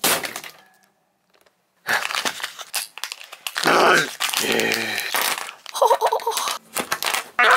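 A Kinder Surprise egg's foil wrapper crinkling and its plastic capsule being handled and pried open, with small plastic toy pieces clicking on a wooden table. This starts about two seconds in, with a few short vocal sounds among it.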